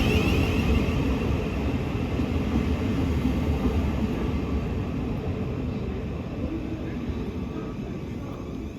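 Electric passenger train running along the platform and slowing down, its rumble and motor whine fading steadily as it comes to a stop.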